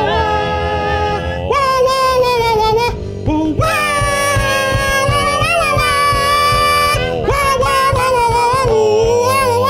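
A group of people singing long, drawn-out notes with vibrato and no clear words, moving to a new note every couple of seconds, with a short break about three seconds in.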